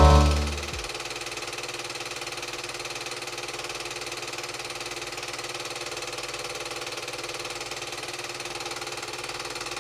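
Bauer P8 TS universal 8 mm film projector running steadily: a mechanical hum with a fast, even rattle. Music fades out within the first second.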